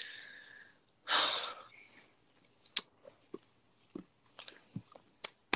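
Breath and mouth noises close to a phone's microphone: a short breathy burst about a second in, then scattered small clicks.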